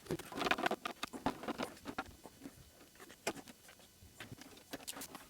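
Many quick, irregular clicks, taps and light scrapes of a Macintosh Plus's plastic case and parts being handled and fitted back together.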